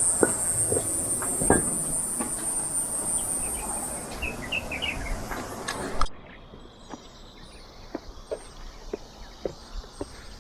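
Insects droning steadily at a high pitch, with a few short bird chirps and footsteps on a trail. About six seconds in the sound cuts off suddenly to a quieter background where only the footsteps go on.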